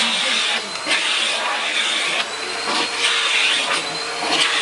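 Electrolux vacuum cleaner running with a steady whine, its suction hiss swelling and easing several times as the nozzle is worked over a cat's fur.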